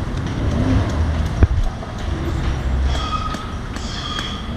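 Forge hammer striking metal: one sharp knock about one and a half seconds in, then faint taps with short metallic ringing, over a steady low rumble of outdoor background noise.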